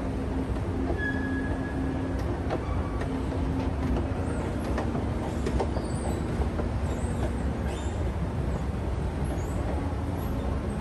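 Schindler 9300AE escalator running while being ridden: a steady mechanical rumble with a low hum and scattered light clicks.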